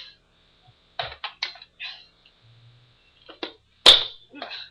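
Sharp plastic clicks and snaps as detachable parts of a Nerf Vulcan EBF-25 blaster are pulled off and handled. There is a quick cluster of clicks about a second in, and a louder single snap near the end.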